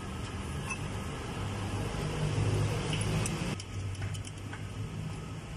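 Light metallic clinks of a small wrench working a nut on the hi-low gear shift bracket, a few scattered ticks in the second half, over a steady low hum.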